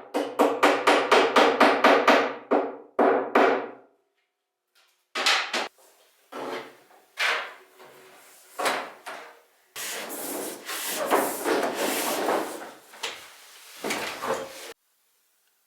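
Hammer driving nails into wood framing: a fast run of ringing blows, about five a second, then scattered knocks and a few seconds of scraping noise. The sound cuts off suddenly near the end.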